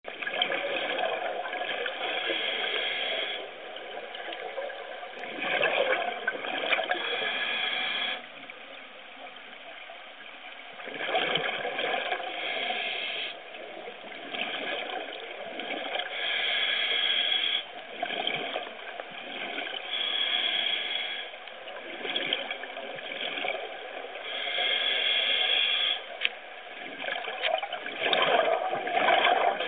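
Scuba diver breathing through a regulator underwater: hissing inhalations alternating with gurgling rushes of exhaled bubbles, repeating every four to five seconds.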